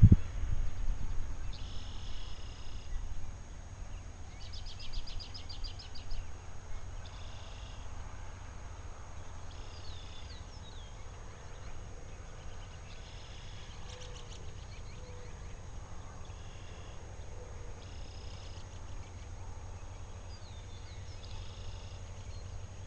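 Small birds calling every few seconds, one call a rapid trill, over a steady low rumble. The rumble is louder for the first few seconds and then settles.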